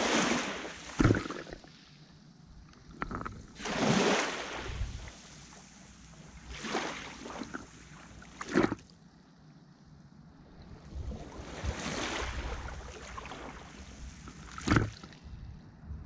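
Small sea waves washing in, each a swell of hiss every few seconds, with three sharper slaps of water that are the loudest moments.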